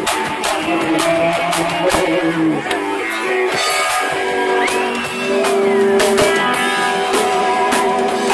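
Live rock band playing loudly, with regular drum kit hits under held chords. About halfway through, one high note bends up and slides back down.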